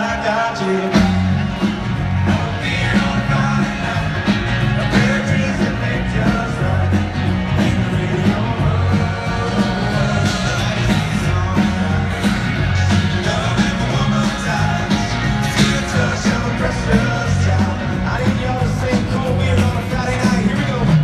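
Live country band playing in a stadium, heard from the stands: a lead vocal over guitars, with bass and drums coming back in fully about a second in.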